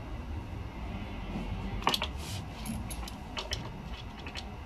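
Small metallic clicks and taps of Allen bolts and an Allen key being handled at the lower fairing of a Honda ST1300, over a low steady rumble. The loudest click comes about two seconds in with a short falling squeak, and a quick cluster of clicks follows in the last two seconds.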